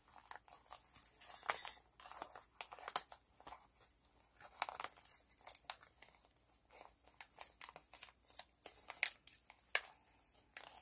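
Clear plastic sleeves and cellophane crinkling and rustling as they are handled, with many small sharp clicks and crackles.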